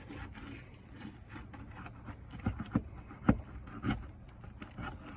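Pry tool working at roofing nails under brittle asphalt shingles: a run of clicks, scrapes and knocks, the loudest four coming between about two and a half and four seconds in, over a low steady rumble.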